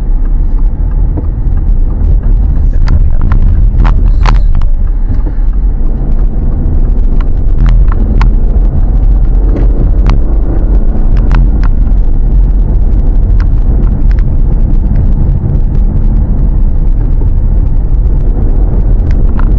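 Steady low rumble of a car driving: engine and road noise, with scattered sharp clicks and rattles.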